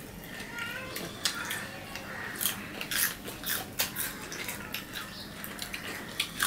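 Close-miked crunching and chewing of raw green hog plums (amra): many sharp, crisp bite clicks.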